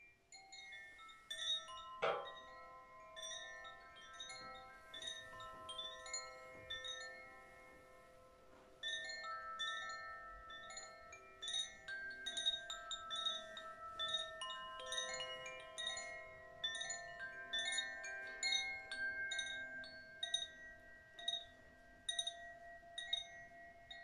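Koshi Terra wind chime ringing, its tuned rods struck over and over so that bright, overlapping tones ring on. A louder strike stands out about two seconds in.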